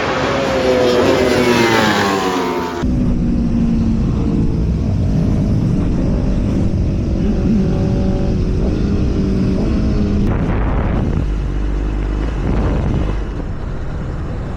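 Racing motorcycle engine on a racetrack, its pitch falling as it comes off the throttle, then an abrupt change about three seconds in to a lower, steadier running note.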